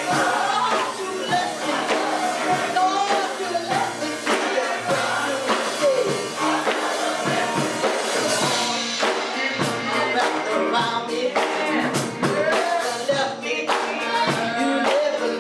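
Gospel music at a church service: voices singing over instrumental accompaniment, with steady percussion hits.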